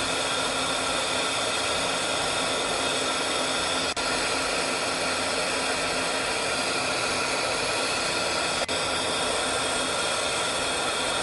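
Oxygen-and-gas lampworking torch burning with a steady hiss, with two very brief dips in level, about four seconds in and near nine seconds.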